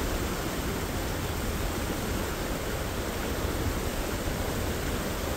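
Steady rushing of a flowing river current.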